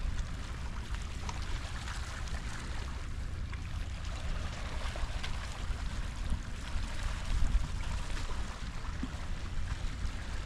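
Wind buffeting the microphone in uneven gusts over a steady wash of water noise from the sea.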